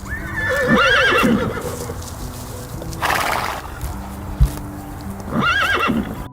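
A horse whinnying twice, a warbling call that rises and falls, about half a second in and again near the end, with a short breathy burst between them, over soft background music with held notes.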